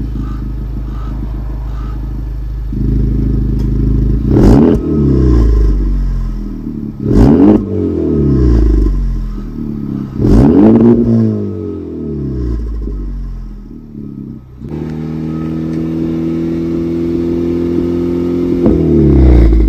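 Honda Civic Type R's turbocharged 2.0-litre four-cylinder idling through an AWE Touring exhaust and blipped hard three times, each rev rising and falling quickly. The idle note changes abruptly about two-thirds of the way through, and one more rev comes near the end.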